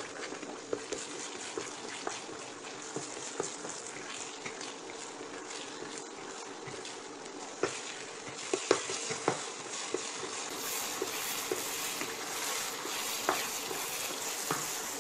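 Spatula stirring and scraping thick banana halwa around a nonstick pan, with a steady frying hiss from the ghee just mixed in. Scattered sharp clicks of the spatula against the pan run throughout and are loudest about eight to nine seconds in.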